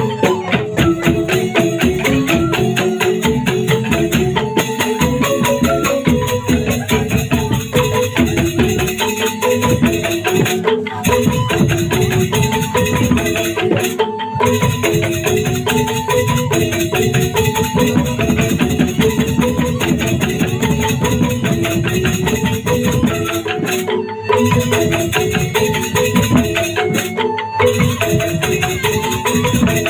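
Instrumental music: a melody of short, struck or shaken pitched notes over fast, steady rattle-like percussion, with brief breaks now and then.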